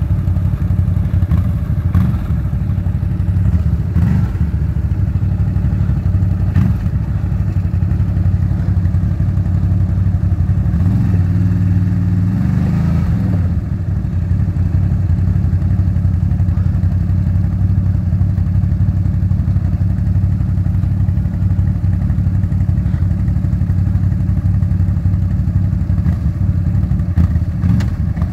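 An ATV engine running steadily close by, with a few knocks in the first seven seconds.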